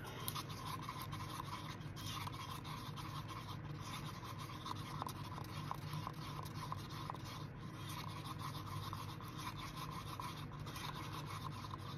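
Wooden stir stick scraping and rubbing steadily around the inside of a paper cup, mixing mica pigment into epoxy resin.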